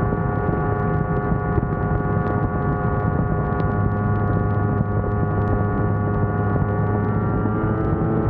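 A motorboat engine running at a steady speed, giving an even hum with no revving.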